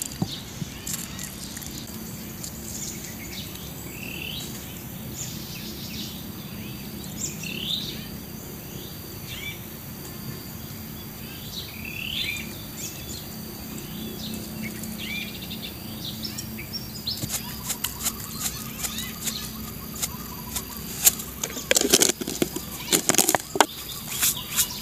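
Outdoor ambience of birds calling in short, repeated falling chirps over a steady high insect buzz. Near the end come a run of clicks and several louder knocks.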